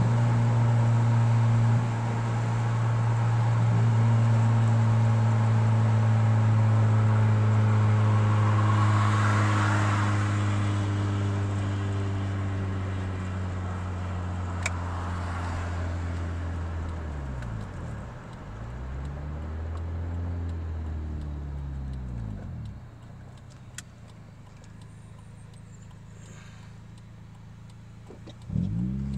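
Honda F23A4 four-cylinder engine with cold-air intake, headers and cat-back exhaust, heard from inside the car: a steady cruising drone that eases off gradually, then several rises and falls in engine speed, dropping to a low, quiet run near idle, and revving up sharply again near the end.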